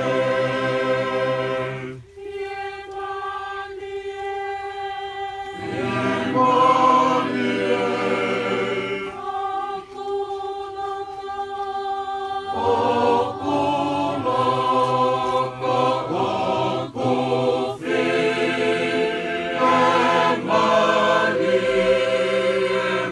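Tongan choir singing a hymn in parts, with no instruments heard. The sound thins to a few held voices about two seconds in and again about nine seconds in, and the full choir comes back in at about five and a half and twelve and a half seconds.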